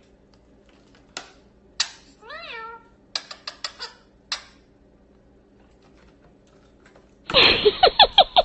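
A single short meow-like call, rising then falling, among a few scattered sharp clicks. Near the end a loud, rapid run of pitched calls begins.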